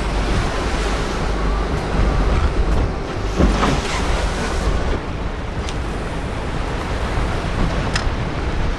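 Wind buffeting the microphone over the rush of sea water around a boat at sea: a steady noisy rush with a deep rumble underneath and a couple of faint clicks.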